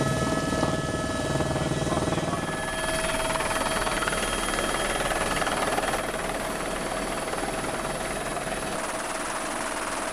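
Helicopter in flight heard from inside the cabin: a steady rushing drone of turbine and rotor with a few held whining tones, a little quieter after about six seconds.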